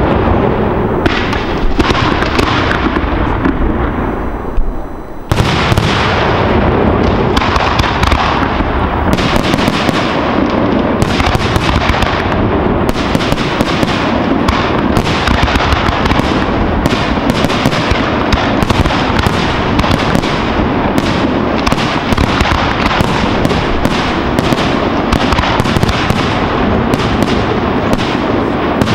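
Aerial fireworks display: a fast, near-continuous barrage of shell bursts and bangs, easing briefly about five seconds in, then resuming as an even quicker string of reports.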